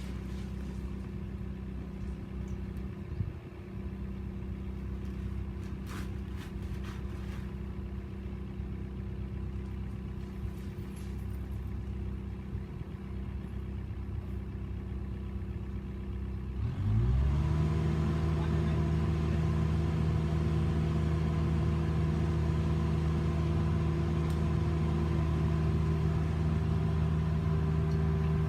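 An engine running steadily at low speed, then speeding up about 17 seconds in and holding a louder, higher steady speed.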